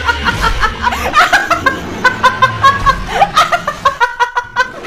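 A woman laughing in rapid, high-pitched bursts, over a low steady hum.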